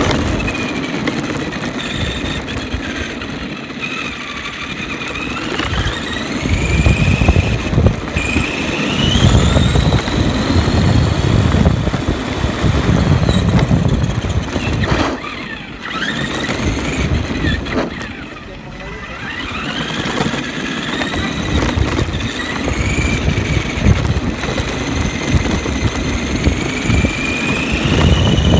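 ARRMA Granite Voltage 1:10 RC monster truck driving on asphalt, heard from a camera riding on it. Its 20-turn brushed electric motor and gears whine, rising and falling in pitch as the throttle changes, over a rumble of the tyres and chassis on the rough road.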